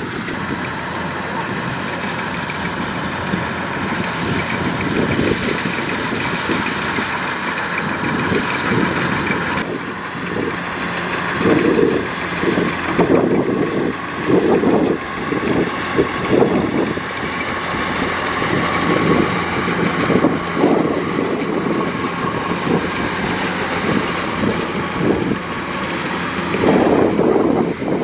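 Kubota DC-105X combine harvester's diesel engine and threshing gear running steadily as it cuts rice, a continuous drone that swells unevenly in the second half.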